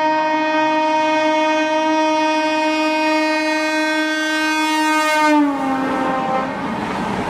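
An Indian Railways electric locomotive's horn is held in one long blast as a superfast express approaches at speed. Its pitch drops sharply about five and a half seconds in as the locomotive passes. The rushing rattle of the LHB coaches going by follows.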